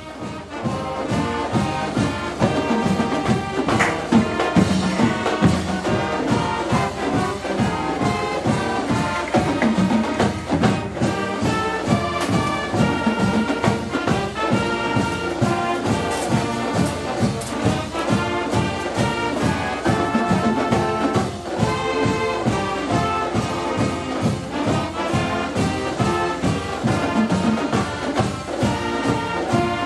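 Background music led by brass, with a steady beat throughout.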